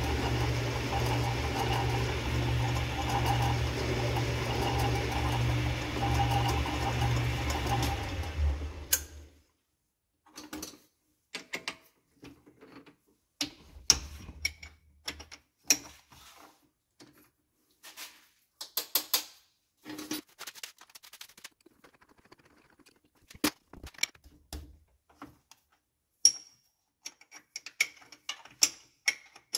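Metal lathe running while a pilot hole is drilled from the tailstock drill chuck, a steady hum that winds down and stops about nine seconds in. After that come scattered clicks and knocks of the drill chuck, its chuck key and the bits as the pilot drill is swapped for a larger drill.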